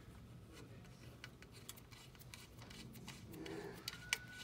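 Small metal ticks and rubbing as a bolt is fitted by hand and turned with a hex key in the top of an e-bike frame, with one sharper click about four seconds in. A faint steady high tone begins just before that click.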